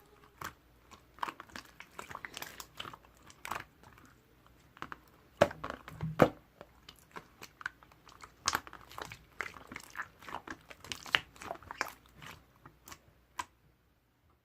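Irregular small clicks, taps and crinkly rustles close to the microphone, stopping shortly before the end.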